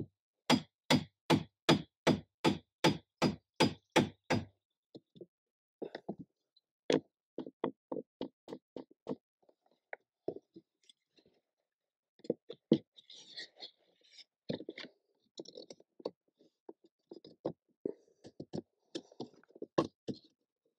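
Wooden ribs of a birch bark canoe being driven into place by hammering: a run of about a dozen sharp knocks, roughly three a second, then slower scattered knocks and taps with light scraping as the ribs are worked into position by hand.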